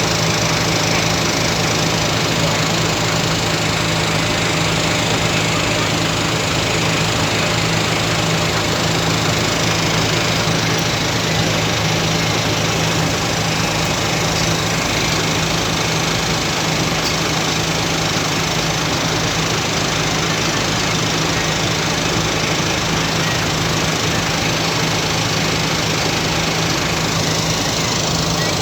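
Ferry engine running steadily: a constant low hum with a fast, even throb underneath.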